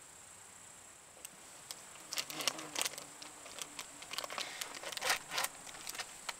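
A plastic food packet crinkling and rustling as it is handled and opened by hand, starting about a second in and densest in the middle few seconds. Steady high cricket chirring runs underneath.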